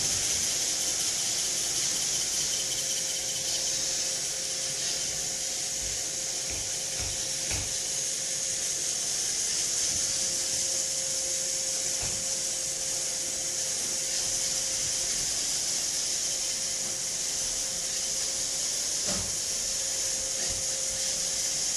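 iRobot Roomba robot vacuum running: a steady high hiss from its suction fan and brushes, with a faint steady hum and a few faint knocks now and then.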